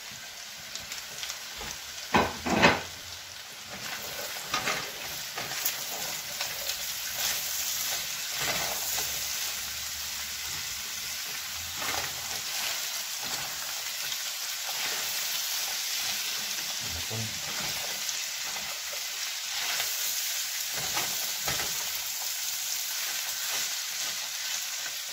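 Vegetables and shredded chicken sizzling in a frying pan as they are tossed and stirred with a spatula, with a steady hiss and repeated scraping strokes. A couple of sharp knocks about two seconds in are the loudest sounds.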